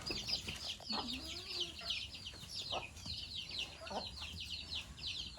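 Many birds chirping continuously in a dense run of short, high, downward-sliding chirps, several a second, with a few fainter lower calls mixed in.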